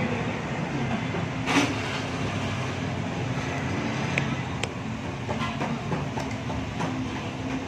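Steady rumble of background traffic. A short burst of noise comes about one and a half seconds in, and a couple of light clinks of a metal spoon on a ceramic bowl come near the middle.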